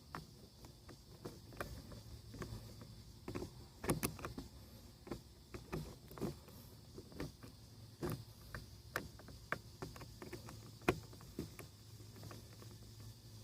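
Irregular clicks, taps and knocks of hand work on a car's rear door trim, a star-head screw being worked out, with the two loudest knocks about four seconds in and near the end, over a faint steady low hum.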